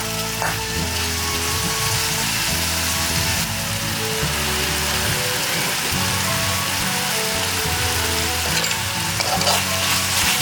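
Chicken stir-frying in a hot pan: a steady sizzle, with a few scrapes of the stirring utensil near the start and near the end. Background music plays under it.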